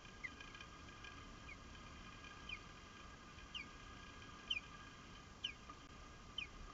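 Osprey calling: a series of short, high, downward-sliding whistled chirps, about one a second, growing louder about halfway through.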